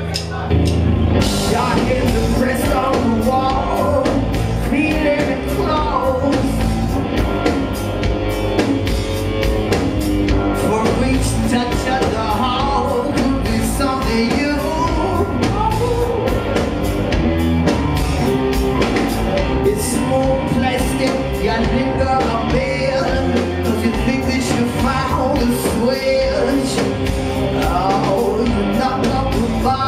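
Rock band playing live: drum kit, electric guitars and bass under a male lead vocal. The full band comes in loudly just after the start, heard from within the audience in a club.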